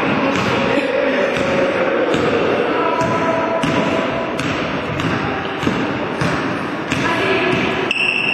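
Basketball game in a gym: the ball bouncing and thudding on the wooden court, over indistinct players' and spectators' voices echoing in the hall.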